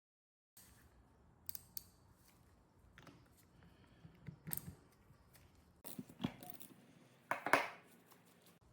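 Irregular clicks, knocks and a short scrape from hands working on small metal parts of a vintage hand-crank bench grinder, loudest about seven and a half seconds in, over a faint hum.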